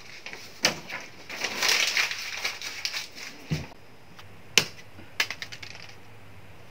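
Paper being crumpled into a ball: a dense crinkling rustle with sharp crackles, then a few lighter crackles near the end.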